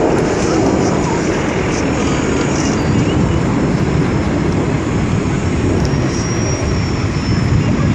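Twin Pratt & Whitney JT8D engines of a McDonnell Douglas MD-88 climbing out after takeoff: loud, steady jet noise, heaviest in the low end, with a faint high whine coming in about six seconds in.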